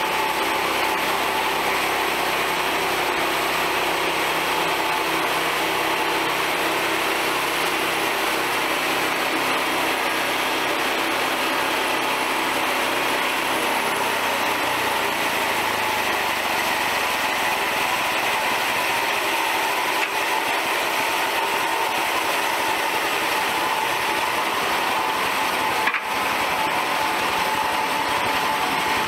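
Small gasoline engine of a portable band sawmill running steadily as it drives the band blade, its low note shifting about halfway through, with a single short click near the end.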